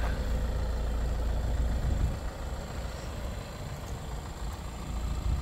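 Renault Scenic's 1.7 dCi four-cylinder turbodiesel idling steadily with a smooth purr, a little fainter after about two seconds.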